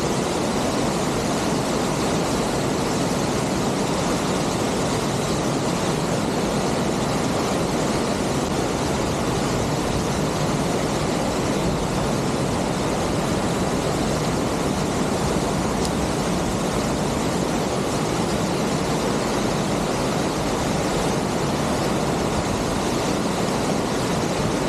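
Waterfall pouring down a narrow rock gorge: a steady, unbroken rush of falling water.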